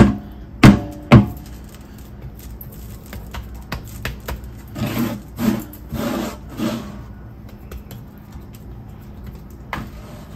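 A heavy raw beef rib roast thumps onto a cutting board three times in quick succession. Around the middle it is rubbed and pressed across the board to pick up loose seasoning, making scraping and rubbing sounds. There is one light knock near the end.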